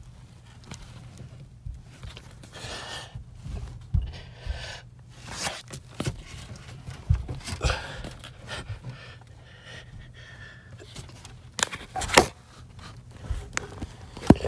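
A man breathing hard and panting close to the microphone as he crawls through a tight attic, with irregular rustling and scraping of clothing and insulation and a few louder scrapes near the end.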